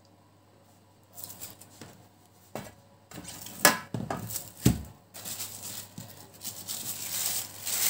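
Cellophane crinkling and rustling as hands handle frozen minced-meat rings laid on it, with a few sharp knocks of a baking tray and board on the countertop, the loudest a dull thud about halfway through.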